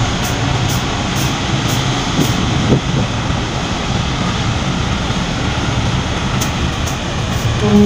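Steady low rumble of ship engines mixed with wind noise, heard on the deck of a vessel in harbour. A steady pitched tone starts right at the end.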